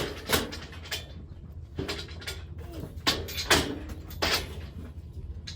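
Metal livestock gates and a cattle head gate clanking and rattling in a series of knocks as a cow is worked into the head gate and caught, over a low steady hum.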